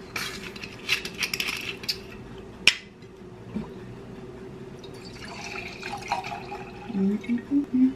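Screw cap twisted off a glass wine bottle, crackling as the seal breaks, with one sharp click as it comes free. A few seconds later wine is poured from the bottle into a stemmed wine glass.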